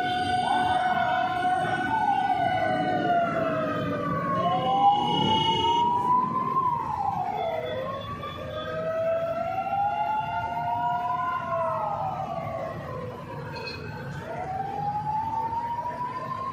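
Fire truck sirens wailing, several overlapping at once, each slowly rising and falling in pitch, over the low noise of street traffic.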